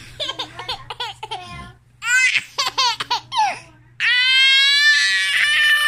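Toddler laughing hard in short bursts, breaking into one long high-pitched squeal of laughter about four seconds in.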